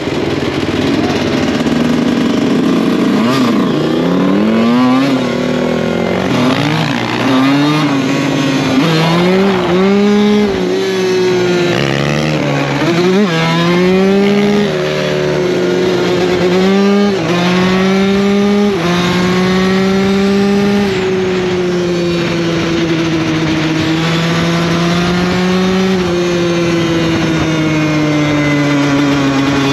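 Dirt bike engine pulling away from a stop and accelerating through the gears: the pitch climbs and drops back with each upshift, about ten times over the first twenty seconds, then settles into a steady cruising note.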